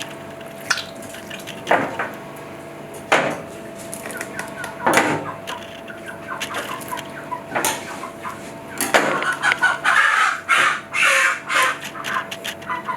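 Chickens clucking, with a run of short repeated calls that grows busier in the last few seconds, over a steady faint tone.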